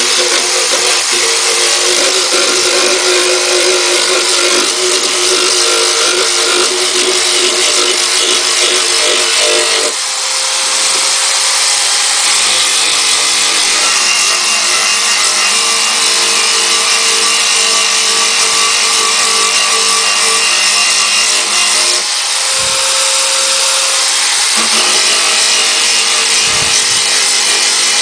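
Corded electric drill with a sanding disc running continuously as it grinds the edges of a wooden box. The motor's tone shifts about ten seconds in and again a little past twenty seconds, as the pressure on the disc changes.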